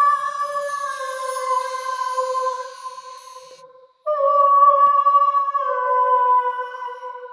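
A woman's wordless vocal toning: two long, high held notes with a short break for breath about four seconds in, each stepping down a little in pitch. It is a light-language vocalization of the energies she feels in the cave.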